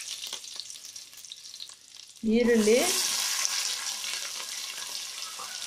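Curry leaves and mustard seeds crackling in hot oil in an aluminium pressure cooker, with small pops. About two seconds in, chopped onions go into the oil and the frying jumps to a loud sizzle, then settles into a steady sizzle.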